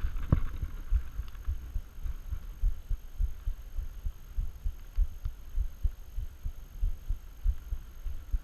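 Low, irregular thumps and rumble on the microphone, about two to three a second, the kind a body-worn camera picks up when jostled or buffeted. There is one brief click about a third of a second in.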